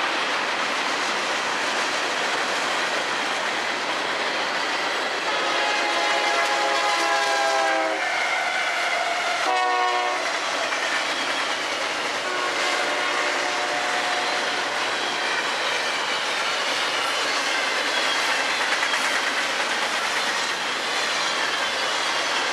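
Freight train cars rolling past at speed close by: a steady rush of steel wheels on rail with clickety-clack. A few brief pitched tones ring out through it near the middle.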